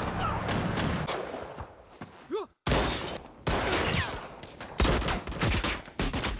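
Gunfire from several guns in a shootout, shots coming rapidly in volleys. The firing drops away briefly about two and a half seconds in, then starts again loudly.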